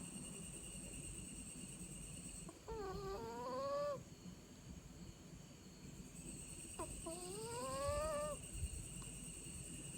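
Snoring: two long, squeaky snores that rise in pitch, about three seconds in and again about seven seconds in, over a low rough breathing rumble.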